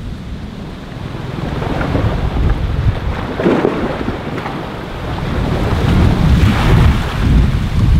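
Wind buffeting the camera microphone in uneven gusts, a low rumble that grows stronger in the second half.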